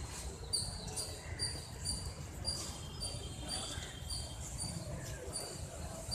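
Short high chirps repeating evenly, about two a second, from a small calling animal, over a low rumble of wind or outdoor background.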